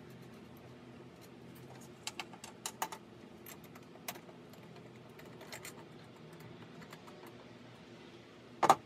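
Small metal hardware being handled: nuts, bolts and washers clicking and tapping as they are fitted at the spring bracket under a steel motorcycle buddy seat pan. Scattered light clicks a couple of seconds in, then a louder metal clatter near the end.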